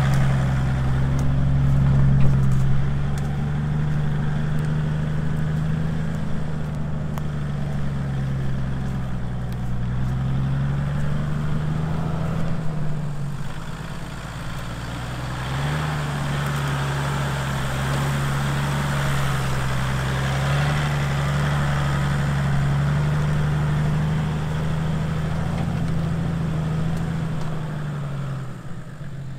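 Toyota Land Cruiser's 4.2-litre diesel engine running at low revs as it crawls off-road, the note rising and falling gently with the throttle. It eases off briefly about 13 seconds in and fades just before the end.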